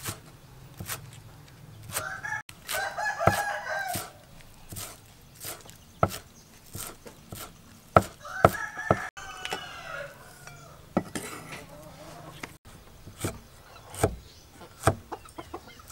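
Cleaver chopping spring onions and then chillies on a wooden chopping block, sharp knocks every half second or so. A rooster crows twice in the background, about two seconds in and again near the middle, each crow lasting about two seconds.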